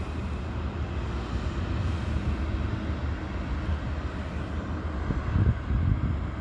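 Wind buffeting the microphone in an uneven low rumble, with a stronger gust about five seconds in that cuts off sharply near the end.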